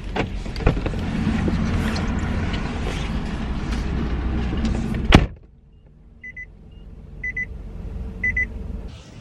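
Car door opened, with outside noise and clicks pouring in, then slammed shut with a sharp knock about five seconds in. After that there is a quiet steady hum and three short electronic beeps, a second apart.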